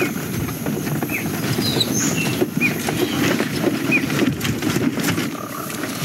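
Animated-film sound-effects bed: a steady low rumbling rattle, with a handful of short, high chirps scattered over it.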